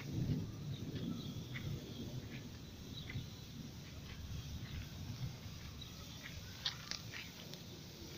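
Outdoor ambience of a low, uneven rumble of wind on the microphone, strongest at the very start, with scattered short bird chirps throughout.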